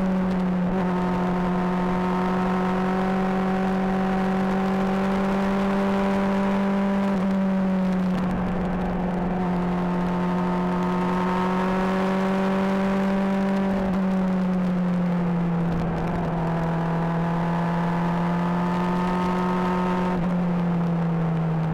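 Honda CBR600RR inline-four motorcycle engine running at steady revs, heard through a mic near the exhaust, its note holding level for several seconds at a time and dipping slightly in pitch a few times.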